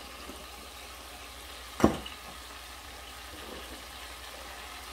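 Marinated chicken and spices sizzling steadily as they fry in a stainless steel pot. About two seconds in comes one sharp knock as a glass jar is set down on the counter.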